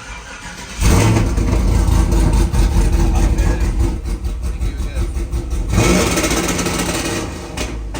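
Burnout truck's engine on its newly fitted two-step rev limiter: it comes in loud about a second in and stutters at the limiter with rapid pops and crackles, then drops back lower near the end.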